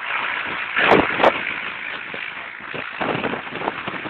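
Helicopter flying overhead, a steady noise of its rotors and engines with wind buffeting the microphone. Two sharp knocks about a second in.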